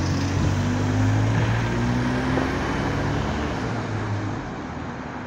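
Diesel engine of an Alexander Dennis Enviro200 single-deck bus pulling away, a steady low engine note that fades over the last couple of seconds as the bus draws off. The spotter takes the bus to be in limp mode.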